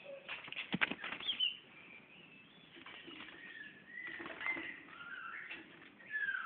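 Oriental magpie-robin fluttering and tapping against a mirror as it fights its reflection: a cluster of sharp taps and wing flaps in the first second and a half, with short gliding chirps and calls repeated through the rest.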